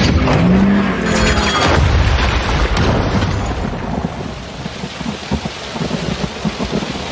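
Film sound effects of a violent thunderstorm: pouring rain and wind with thunder rumbling. The sound is densest and loudest in the first couple of seconds, then settles into a steady rain hiss dotted with low thumps.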